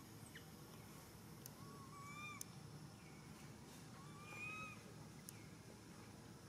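Near-quiet background with two faint, short crying coo calls from an infant long-tailed macaque. Each call rises, then holds level; the first comes about two seconds in and the second about four seconds in.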